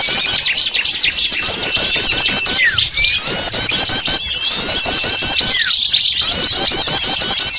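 Small-bird lure recording: a dense, unbroken chatter of many small birds, rapid high chirps overlapping one another, with a thin held whistle for about a second shortly after the start. It is the noisy call mix played to draw small birds in to a trapping spot.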